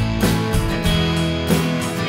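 Background music: a guitar-led track with strummed guitar over a steady beat.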